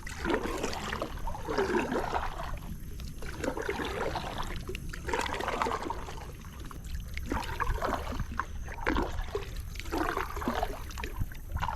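Water trickling and splashing irregularly around a small boat, over a steady low rumble.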